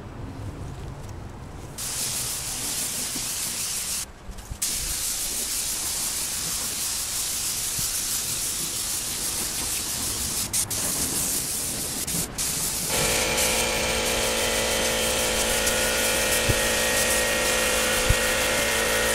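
Air-fed gravity-cup spray gun hissing as paint is sprayed, with a short break about four seconds in. About two thirds of the way through, a steady droning hum with several pitches starts suddenly and runs on under the hiss.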